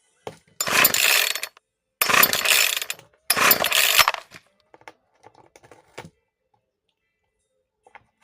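A cat gnawing and tearing at a cardboard box in three rasping bursts of about a second each, a buzzing sound like a chainsaw, followed by a few faint scratches and clicks.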